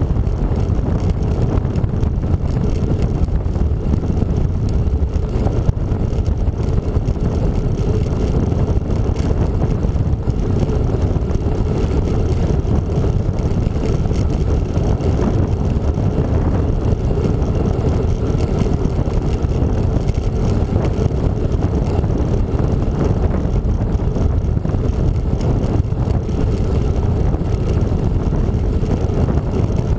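Steady wind rush on the microphone of a camera riding on a moving bicycle: a dense, unbroken low rumble with no engine note.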